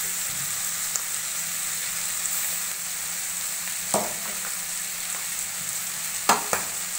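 Goat head meat sizzling in oil in an aluminium kadai as a thick ground masala paste is scooped in on top. A steady frying hiss, with a sharp knock about four seconds in and a couple more near the end.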